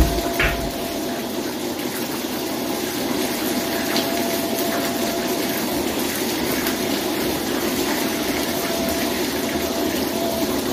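Steady drone of an airliner cabin: engine and air-flow noise at an even level. Two short low thumps come right at the start.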